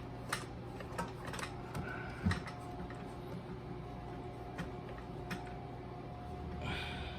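A few scattered light clicks and taps from a water-hose fitting being threaded and hand-tightened onto a bidet connection, over a steady low hum.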